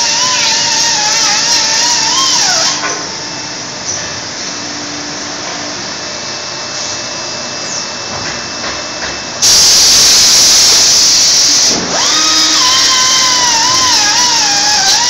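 Rotary tool on an industrial robot arm working over a shoe upper, its motor giving a high whine that wavers in pitch as the arm moves. The whine gives way to a softer hiss about three seconds in. A loud rush of hiss lasts about two seconds, then the whine returns near the end.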